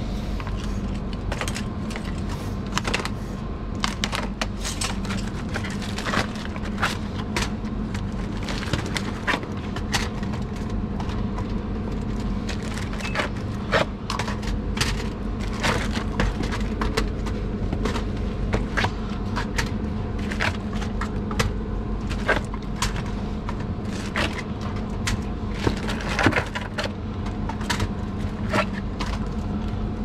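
Bottled drinks being stocked into a store cooler: irregular clicks and knocks, about one or two a second, as bottles are set down and pushed into place on the shelves, over a steady low hum.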